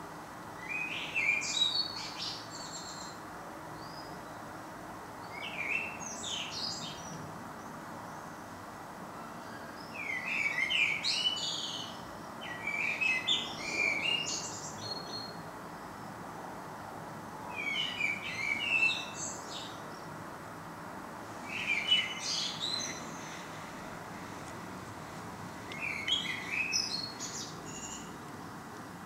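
A songbird singing short phrases of rapid, high chirping notes, one phrase about every four seconds, seven in all, over a steady low background hiss.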